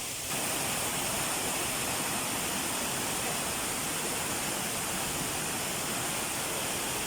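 Waterfall: a steady rush of falling water, with no break or rhythm, stepping up slightly just after the start.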